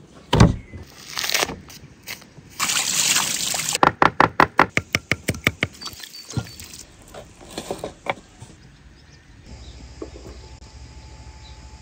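Raw beef being handled on a wooden board: a heavy thud as the meat is slapped down, then a quick run of wet squelches, about five a second, as hands work marinade into the meat. Near the end the sounds give way to a quiet, steady low hum.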